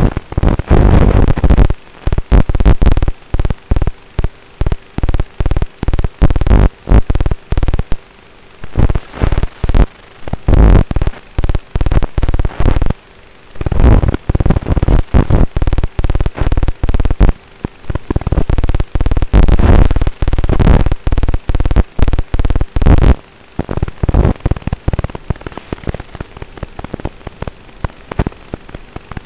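Loud, distorted crackle in rapid, irregular bursts on the onboard audio of an analog FPV drone's video feed, with a faint steady hum underneath.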